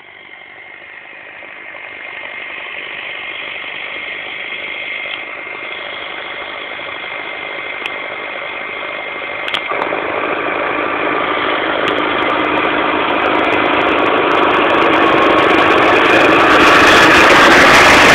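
Massey Ferguson 5470 tractor's diesel engine running steadily while pulling a plough, getting steadily louder as it draws near.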